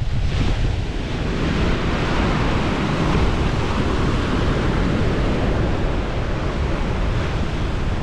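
Ocean surf breaking and washing up the shore, with a surge of wash about half a second in, over a steady rumble of wind buffeting the microphone.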